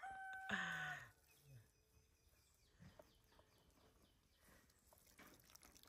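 A bird's long held call ends about a second in, followed by faint, repeated short chirps of small birds.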